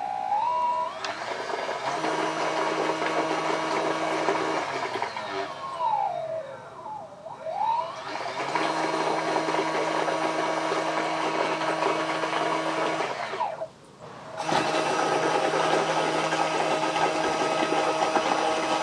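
Small electric motor spinning a three-blade model-boat propeller under water, with a steady whine. About a third of the way in the pitch falls and climbs back as the throttle is eased off and opened again. Two-thirds through it cuts out briefly, then comes straight back up to speed.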